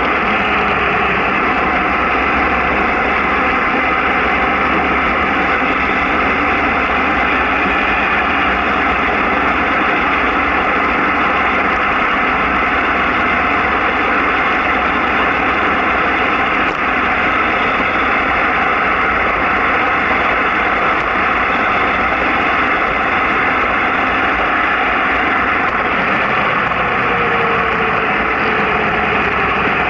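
Steady travel noise recorded on board a vehicle running downhill on a mountain road at about 40 to 55 km/h, even in level throughout.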